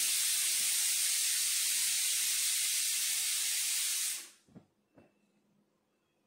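A loud, steady hiss that cuts off about four seconds in, followed by two faint clicks.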